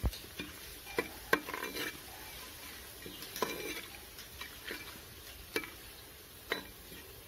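A steel spoon stirring whole spices frying in hot oil in a pressure cooker, clinking against the pot about six times over a light sizzle.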